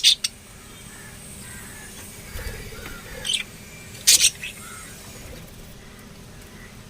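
Lovebirds calling: short shrill chirps right at the start, again about three seconds in and loudest just after four seconds, with fainter small chirps in between.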